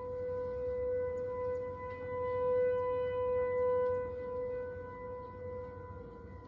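ASC T-128 outdoor warning sirens sounding a steady tone for their weekly test: one unchanging pitch that swells louder about two to four seconds in and then eases back.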